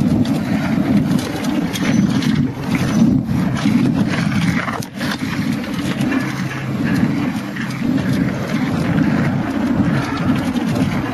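Mountain bike rattling and rumbling steadily as it descends a rough downhill trail, with a brief dip about five seconds in.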